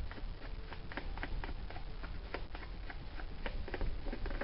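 Irregular light clicks and taps, a few a second, from hands handling and fitting parts on an accordion's bass side as it is being reassembled.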